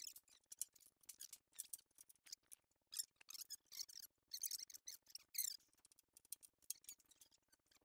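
Faint, irregular high-pitched squeaks and scratchy clicks, many short ones in quick succession, from hands handling parts at a front disc brake.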